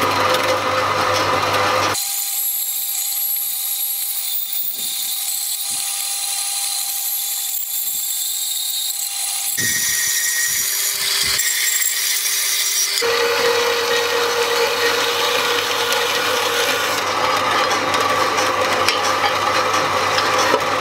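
Small bandsaw cutting through mild steel bar stock, the blade running steadily in the cut. The sound changes abruptly several times, with a steady tone over the cutting noise.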